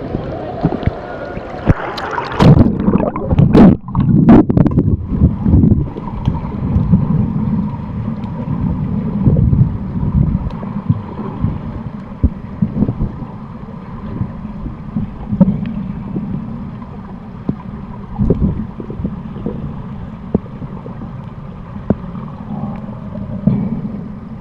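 Pool water splashing and sloshing over the microphone at the surface, loudest about two to five seconds in, then the muffled rumble and gurgle of underwater pool noise, with a few dull knocks.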